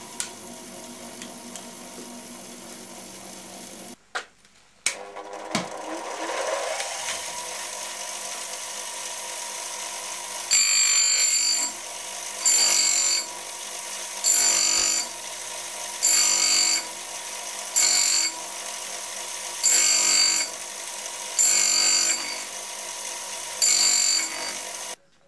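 Bench grinder running steadily; about four seconds in it breaks off and a motor is switched on and speeds up. From about ten seconds in, a steel drill shank spun by an electric drill is pressed against the grinding wheel nine times, about every second and a half, each contact a loud, high-pitched grinding squeal as the end is ground to a taper.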